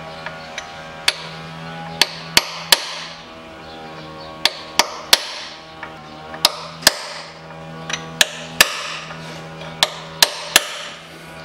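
Hammer blows on a metal drift against the inner steel sleeve of a lower engine mount bushing, bending the sleeve in to loosen the bushing for removal. Sharp ringing metallic strikes, mostly in quick groups of three, about eighteen in all.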